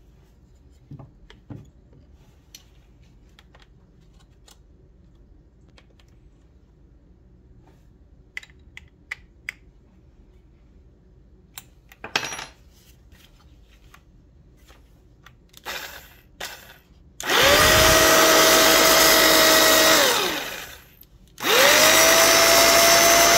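Rockwell Model 60 jigsaw's electric motor test-run twice with no blade fitted: it spins up to a steady whine, runs for about three seconds, winds down, then starts again near the end. Before that, light clicks and taps of the saw's parts being handled and fitted.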